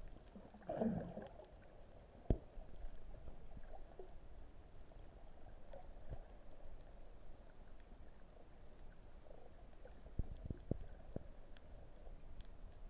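Underwater sound picked up by a snorkeler's camera: a low, faint rumble of moving water, with a brief louder rush about a second in and scattered sharp clicks and knocks, a cluster of them near the end.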